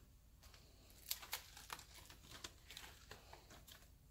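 Faint crinkling and light ticks of plastic sleeve pages in a trading-card binder being turned by hand.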